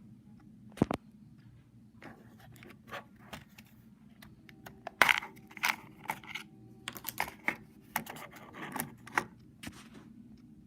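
Irregular sharp clicks and light clatter of hard plastic, a small IKEA alarm clock being handled; the clicks come thickest in the middle stretch. There is no alarm tone.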